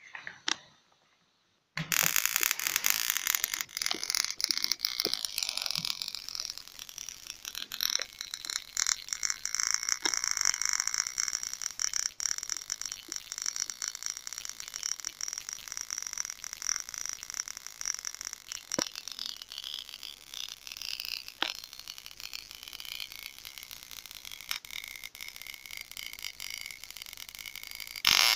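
High-voltage discharge crackling and hissing at the electrodes of a homemade ozonator: a dense stream of fine snaps that starts about two seconds in, eases somewhat midway, and flares louder again near the end.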